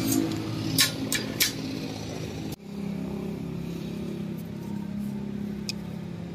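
Steady low motor hum in the background, with a few sharp metallic clicks in the first second and a half and another near the end, from pliers and steel binding wire being twisted around rebar to tie a joint.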